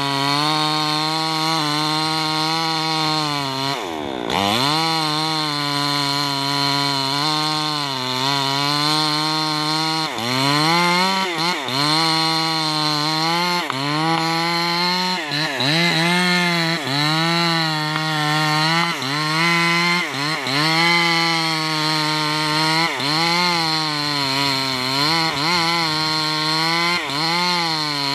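Maestro 6500L two-stroke mini chainsaw cutting into the trunk of a large, hard acacia tree. The engine's pitch drops and recovers again and again as the chain bites into the dense wood under load, with one deep drop about four seconds in.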